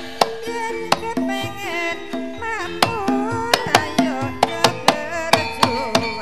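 Live Javanese gamelan music accompanying ketoprak: sharp, irregular kendang hand-drum strokes over sustained metallophone tones, with a wavering melody line above.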